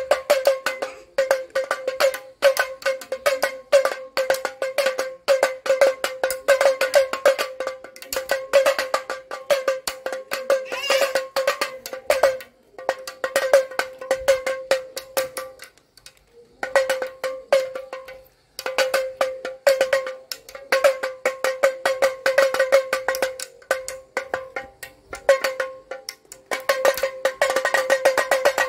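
Plastic toy damru (pellet drum) twirled back and forth, its beads rapidly striking the two drumheads in a fast rattling patter, each stroke with a short ring at one pitch. It plays in long runs, broken by brief pauses about halfway through and again a few seconds later.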